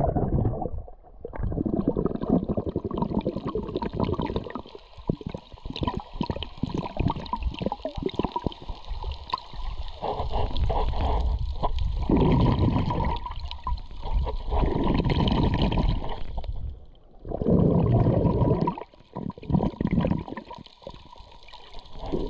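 Water sloshing and gurgling close to the microphone, in surges that come and go every few seconds.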